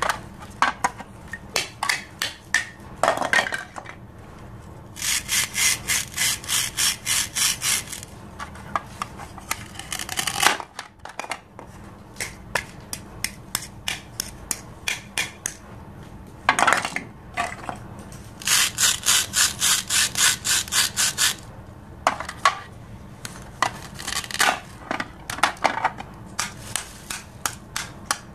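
A plastic toy knife sawing back and forth across plastic toy fruits and vegetables on a plastic cutting board, in runs of about four strokes a second. Between the runs come plastic clicks and taps, and a few short rips as the Velcro-joined halves are pulled apart.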